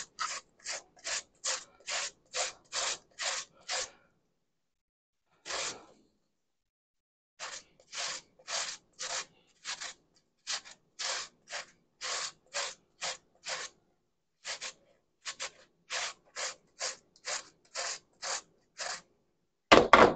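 Raw potato being shredded on a hand grater: quick rasping strokes, about three a second. After about four seconds the strokes stop for a few seconds, with one lone stroke in the gap, then resume at the same pace.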